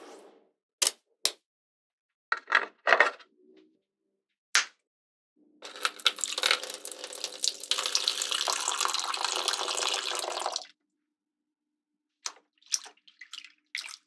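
Magnetic balls clicking together a few times as a strip is set into place, loudest about three seconds in. Then water pours steadily into a small clear plastic pool for about five seconds and stops suddenly, followed by a few light splashes and knocks near the end.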